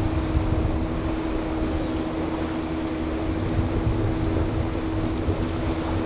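Shoreline ambience: wind rumbling unevenly on the microphone, under a steady low hum and an even, high-pitched insect buzz.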